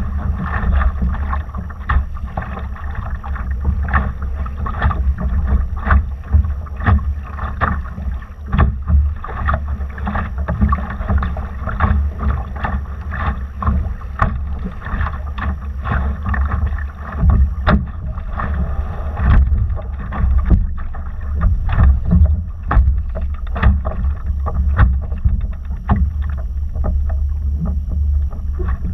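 Wind rumbling on the microphone over water splashing and slapping against a Laser sailing dinghy's hull under way, with many irregular short splashes.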